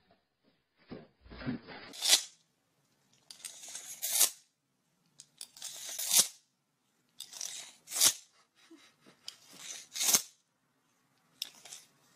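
A cat close to the microphone giving a series of short, noisy blasts of breath, about one every two seconds, each swelling and ending sharply.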